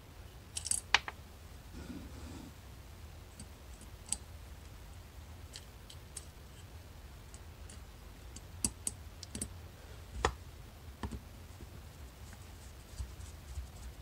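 Scattered small metallic clicks and ticks as a tiny screw is started by hand into a Mikuni carburetor body to hold the float pin in place.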